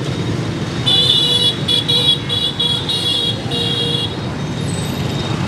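A vehicle horn beeps about five or six times in quick succession, one longer beep then shorter ones, over the steady rumble of street traffic.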